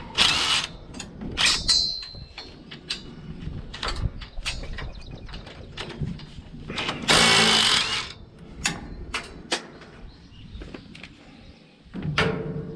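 Hand tools working bolts on the metal frame of a New Holland 851 baler: irregular clanks, clicks and knocks, with a short harsh rasping burst at the start and a longer one about seven seconds in.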